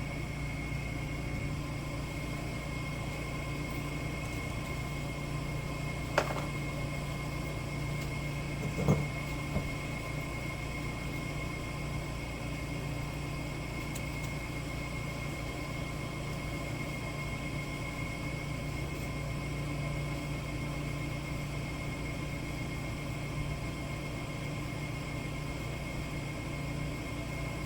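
Steady mechanical hum with a constant high whine over it, and two light knocks about six and nine seconds in.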